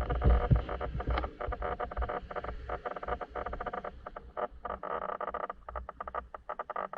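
Electric brushless motor of an RC speedboat whining steadily, heard from the boat's onboard camera, choppy and cutting in and out many times a second. There are heavy low thumps in the first second.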